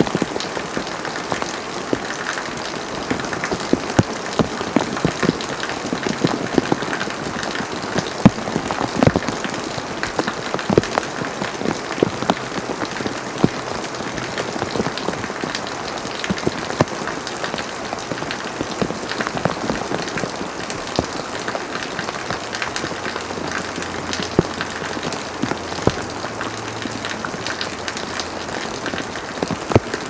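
Heavy rain downpour falling steadily on paving and foliage, with many sharp drop strikes standing out close by.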